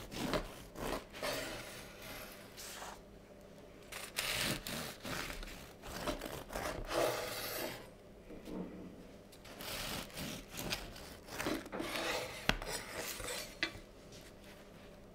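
A large kitchen knife sawing through a crusty, seed-topped whole-grain loaf on a wooden cutting board. Rasping back-and-forth strokes come in repeated bursts as the slices are cut, with one sharp knock on the board near the end.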